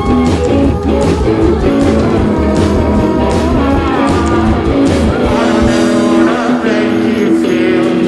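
Live rock band playing loud: electric guitar, bass and drums, with singing. About two-thirds of the way in, the low bass and drum hits drop away, leaving held guitar notes.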